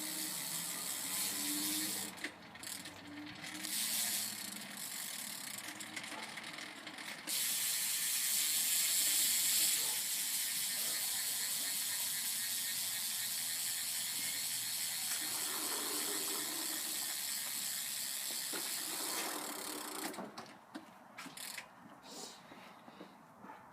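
Rapid metallic ratcheting clicks from work on a BMX's chain and rear wheel. The clicks are uneven and broken at first, then a dense steady run from about seven seconds in to about twenty seconds, with scattered ticks near the end.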